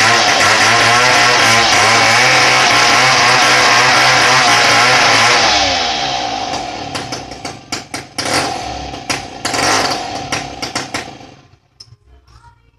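Chainsaw running at full throttle, then the throttle is released about five and a half seconds in and the engine winds down. A run of sharp cracks and snaps follows before the sound dies away near the end.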